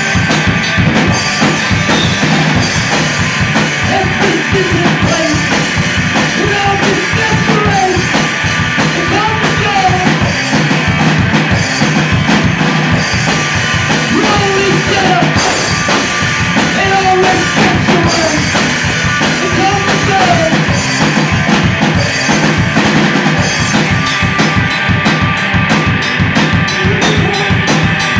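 A rock band playing live and loud, the drum kit and bass drum to the fore. Over it runs a melodic line whose notes bend up and down.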